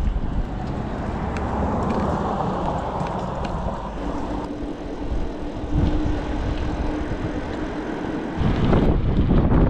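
Wind buffeting the microphone and road noise from a touring bicycle riding along a road. A steady vehicle hum from passing traffic joins in the middle, and the wind gets louder near the end.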